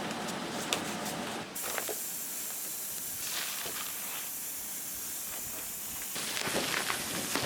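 Steady rain, an even hiss with scattered ticks of drops. The sound changes abruptly about a second and a half in and again about six seconds in.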